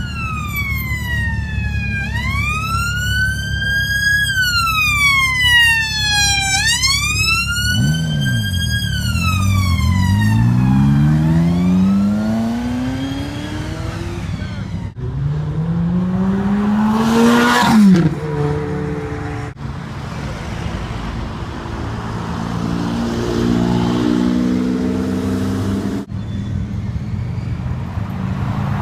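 A siren wails, its pitch slowly rising and falling, for the first several seconds. Then supercar engines rev and accelerate, their pitch climbing again and again through the gears across a few short clips. One long climbing rev about two-thirds of the way through is the loudest and cuts off abruptly.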